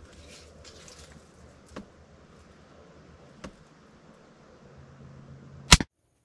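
Mini Striker pistol crossbow firing: one sharp, loud crack of the string release near the end, after a few faint clicks of the bow being handled and brought up to aim.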